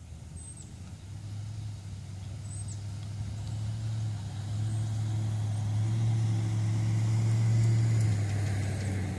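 A motor vehicle engine humming low and steady, growing louder over several seconds and easing off near the end.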